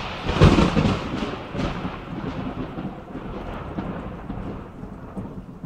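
A loud, deep rumble that peaks about half a second in and then slowly dies away, with faint crackling through it.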